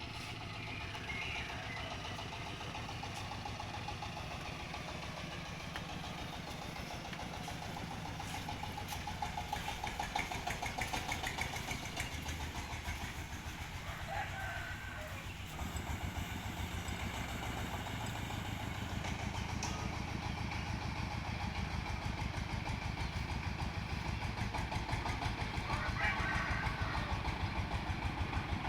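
Diesel engine of a mobile rice huller running steadily with quick, even firing pulses, getting louder about halfway through.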